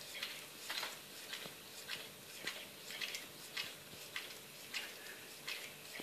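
Bull terrier licking a cat's fur: short tongue clicks at an uneven pace, about one or two a second.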